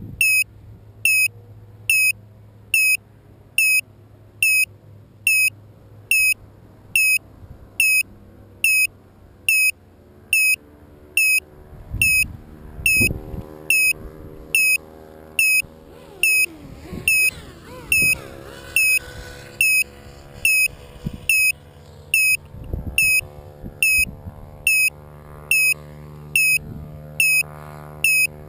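Electronic beeper on a crashed RC model plane, sounding a short high-pitched beep about every 0.8 seconds. Low thumps and rustles come and go in the middle.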